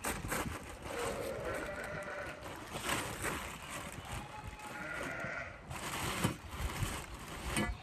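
Sheep bleating a couple of times, about a second in and again around five seconds, over scattered knocks and rustling.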